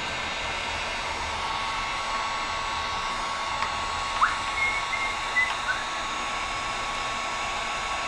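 Electric heat gun (Wagner) blowing steadily, a fan-driven hiss with a faint steady whine, as it heats a glued-on engine valve cover to loosen it. A few brief high chirps sound about halfway through.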